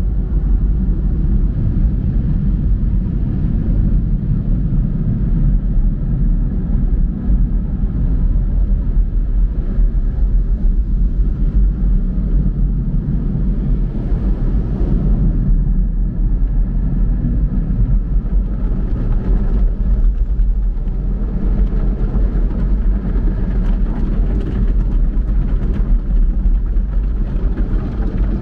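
Automatic car wash heard from inside the car: rotating brushes and hanging cloth strips scrubbing over the body and windshield, a loud, steady low rumble.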